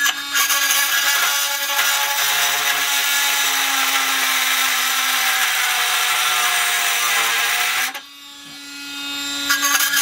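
Milwaukee M12 FUEL oscillating multi-tool, speed turned up, cutting off a metal tab on a steel post: a loud harsh buzz for about eight seconds that drops suddenly as the blade comes off the cut, then builds again as it bites once more near the end.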